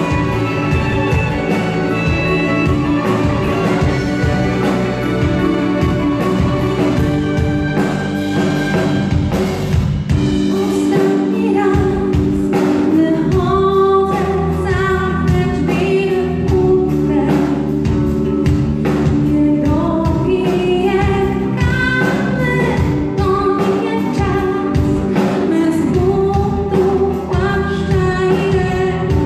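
Live rock band playing, with drums, electric guitars, keyboard and violin; from about ten seconds in a woman sings over the band.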